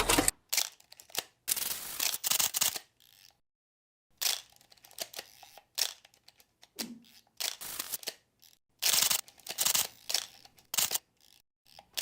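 Pen scratching across paper in quick, uneven strokes of handwriting, each stroke a short scratch with brief pauses between words.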